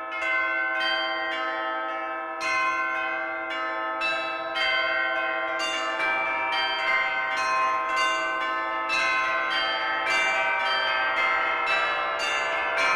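Music made of church bells: a peal struck in quick succession, about two strikes a second, the tones ringing on and overlapping.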